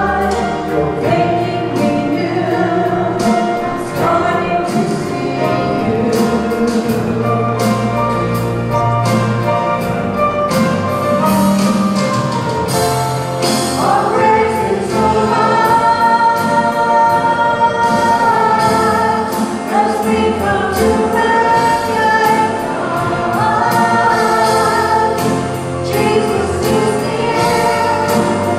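Church praise band playing a worship song: women's voices singing in harmony over strummed acoustic guitar and electric bass, with a steady beat.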